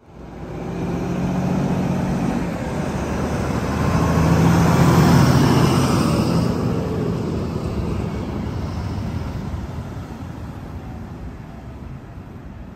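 Diesel engines of heavy-haul trucks driving past close by, the loudest a Volvo tractor unit pulling a multi-axle low-loader, which peaks about five seconds in and then fades as the trailer rolls past.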